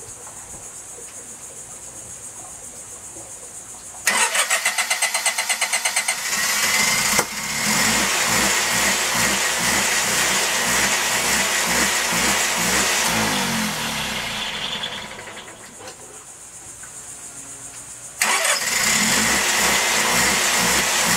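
Kohler marine generator cranked by its starter about four seconds in, catching and running. Around three-quarters of the way through it dies down, then starts again and runs on, its speed wavering a little because it has no load on it.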